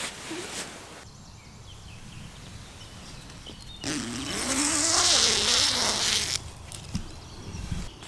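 Tent door zipper being pulled open in one long stroke of about two and a half seconds, starting about four seconds in, its buzz wavering in pitch as the pull speeds up and slows. A few soft knocks follow near the end.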